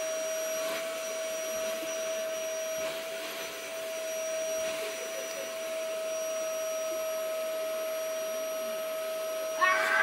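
Vacuum cleaner running steadily with a constant whine. Near the end a toddler starts to cry.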